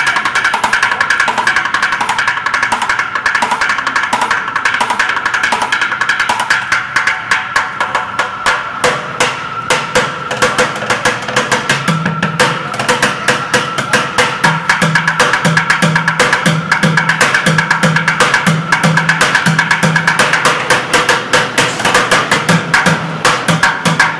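Bucket drumming: drumsticks beating a fast, dense rhythm on white plastic buckets. From about halfway through, deeper strokes join in a repeating pattern under the quick hits.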